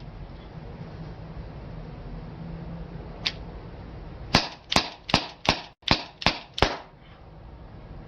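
Airgun firing: one shot, then a quick string of seven shots at about three a second as a magazine is emptied.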